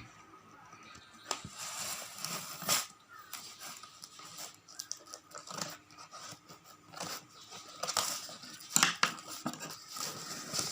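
A shipping parcel's packaging being opened by hand: irregular rustling, crinkling and tearing, with a sharper, louder noise about three seconds in and another about nine seconds in.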